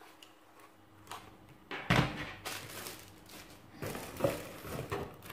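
Unboxing handling noise: a knock about two seconds in, then rustling and crinkling of plastic wrapping and the cardboard box as the bagged spotlight is lifted out.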